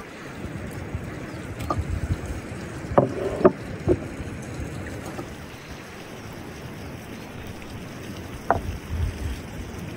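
A few light clinks and knocks of a fork and clay tableware: three close together about three seconds in, another near the end. Low wind rumble on the microphone runs underneath.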